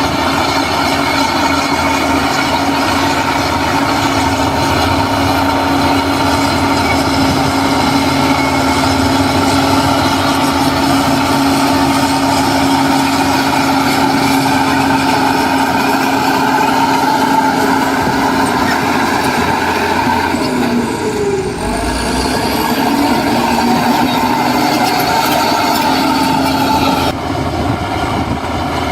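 Heavy diesel earthmoving machinery running steadily under load, its engine note held, with a brief dip and change in pitch about two-thirds of the way in.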